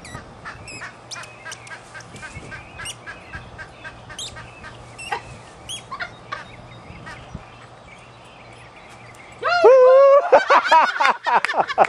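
Faint, short squeaks from a squeaky dog toy, irregular and many, as miniature pinschers chew and tug at it. About nine and a half seconds in, a much louder high-pitched warbling sound takes over.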